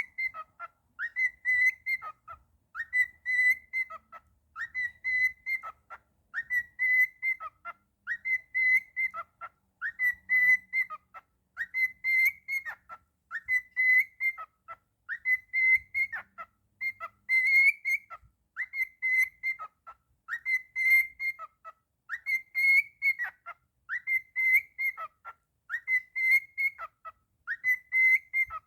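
Cockatiel whistling the same short phrase over and over, about once a second: each phrase rises quickly to a held high note, then drops away.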